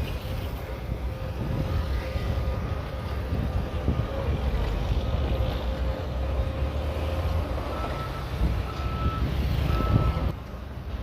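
Shantui DH17C3 bulldozer's diesel engine running with a low rumble, its reversing alarm beeping three times near the end.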